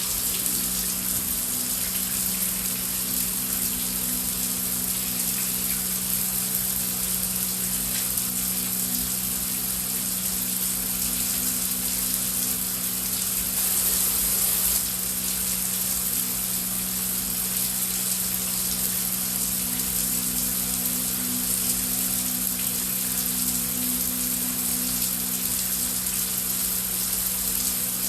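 Heavy rain falling as a steady, dense hiss, swelling slightly about halfway through. A low steady hum runs beneath it.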